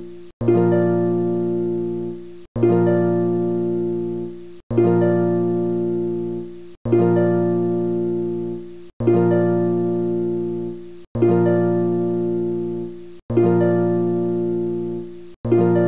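Background music: the same plucked-string chord struck about every two seconds, each one fading out before the next, as a repeating loop.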